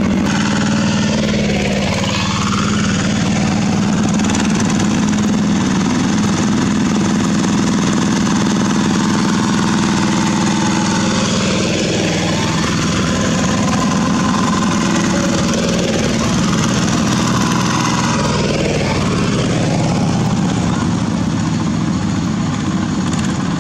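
Several two-wheel walking tractors' single-cylinder diesel engines running together in a steady, loud drone. Now and then the pitch of an engine rises and falls.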